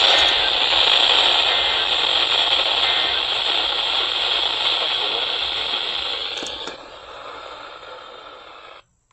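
Radio static: a steady hiss that weakens about seven seconds in and then cuts off suddenly.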